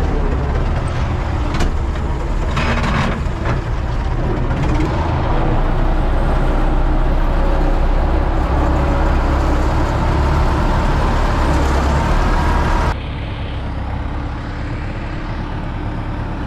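Universal 650 tractor's four-cylinder diesel engine running steadily under load, heard from inside the cab. About thirteen seconds in the sound cuts abruptly to a quieter, steady engine hum.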